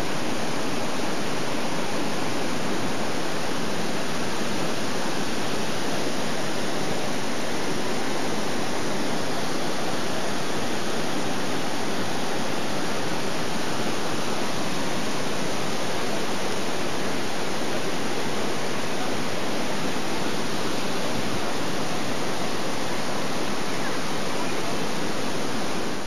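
Waterfall: a steady, even rush of falling water that stays unchanged throughout.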